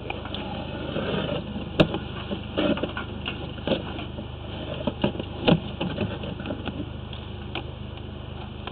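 Irregular knocks and clatters from the drain camera and jetter hose being pulled back through the sewer pipe, over a steady machine hum.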